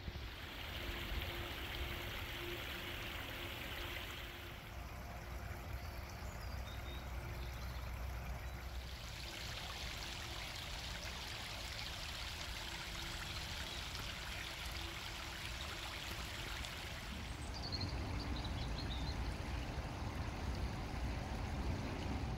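Running water, like a stream or small cascade, making a steady rushing hiss that shifts in tone as it goes, with a few faint high chirps.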